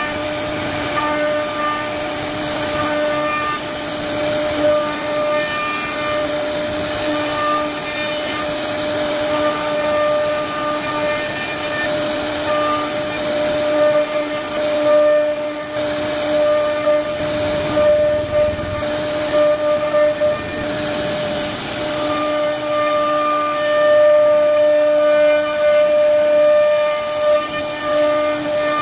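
CNC router spindle running at a steady whine while its bit routes grooves into a wooden panel, with a hiss from the cutting over it.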